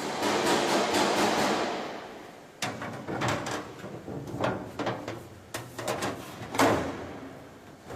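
A rushing noise that fades away over about two seconds, then a handful of separate sharp knocks and clacks, the loudest about two-thirds of the way through.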